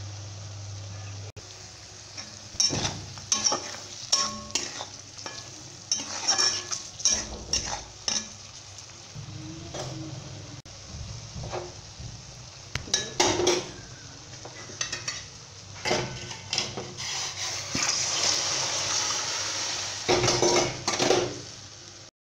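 Spatula stirring and scraping brinjal and spice masala frying in oil in a pan: a steady sizzle under repeated knocks and scrapes of the spatula against the pan, the sizzle swelling for a few seconds near the end.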